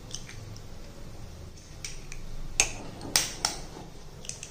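An egg being broken open by hand over a glass bowl: a few sharp clicks and cracks of eggshell as it is pulled apart.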